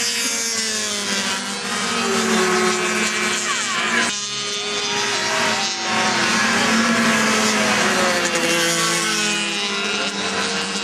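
Several two-stroke snowmobile engines racing past at high revs, their pitches rising and falling as they come and go and overlapping one another. There is a brief dip in the sound about four seconds in.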